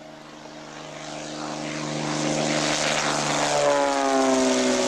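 Single-engine propeller plane taking off and passing low by: its engine and propeller grow steadily louder, then drop in pitch as it goes past about three and a half seconds in.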